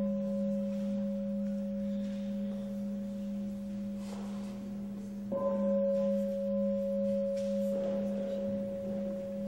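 A struck metal instrument ringing with a sustained, bell-like tone: a low hum and a higher ring, with a slow pulsing wobble. It is struck again about five seconds in, and the ringing swells.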